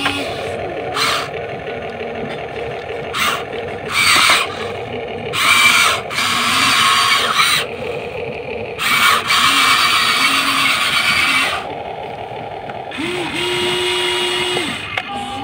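Huina 1593 remote-control excavator's small electric motors and gears whirring in repeated bursts as the boom and bucket move, over a steady hum.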